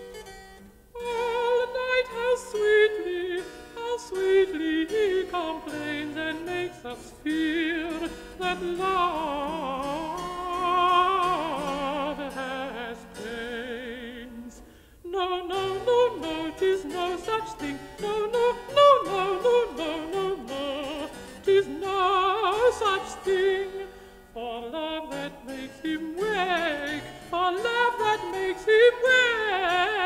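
Countertenor singing a Baroque song with vibrato, drawing single syllables out into long decorated runs, over harpsichord continuo. The voice breaks off briefly about halfway through and again about two-thirds of the way through.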